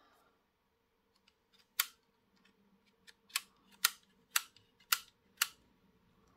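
Sharp plastic clicks, six in all, roughly half a second apart from about two seconds in, as a model railway passenger coach is handled.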